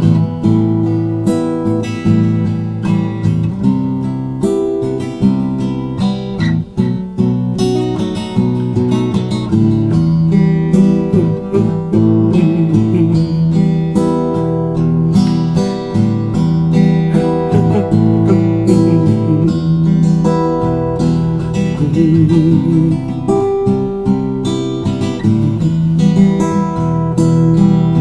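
Acoustic guitar strummed in an instrumental passage of a song, with no singing.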